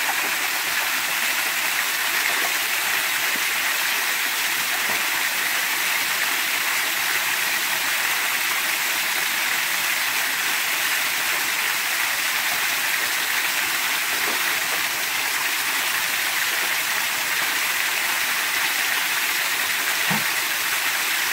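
A small waterfall pouring over a rock ledge into a shallow creek pool, a steady, even rush of falling water.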